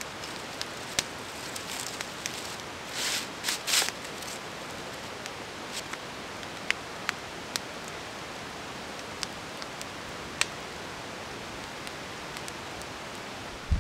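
Small campfire crackling, with occasional single sharp pops over a steady hiss. A few bursts of rustling about three to four seconds in.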